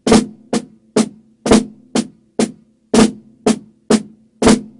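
Drumsticks playing Swiss Army triplets on a drum at a slow, even tempo: a flam followed by two taps, the pattern repeating about every one and a half seconds, with the hands alternating which side leads the flam. Each stroke rings briefly, and the flams are the loudest hits.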